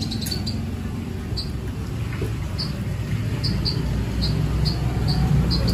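Workshop background: a steady low rumble that grows louder near the end, with short high chirps scattered through it.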